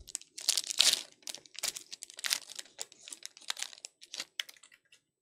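A Panini Donruss basketball card pack's wrapper being torn open and crinkled as the cards are pulled out: a run of irregular crackles, with the loudest tear about a second in.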